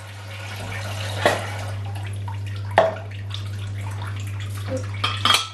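Kitchen tap running into a stainless sink while plastic cups and a metal flask are rinsed, with sharp knocks of the dishes being handled about a second in, near three seconds, and several near the end. A steady low hum sits under it.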